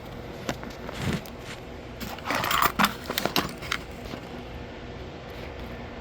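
Small hard clicks and a brief rattling scrape about two and a half seconds in, followed by a quick run of sharp clicks: small metal parts being handled.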